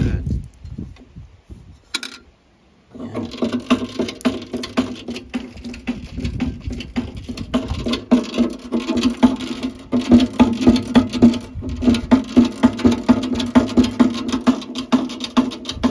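Water squirting and pattering as a garden-railway locomotive tender's hand pump is worked, now pumping freely after a lump of coal blocking it was cleared. A short pause about two seconds in, then a busy run of small spatters and clicks over a steady low hum.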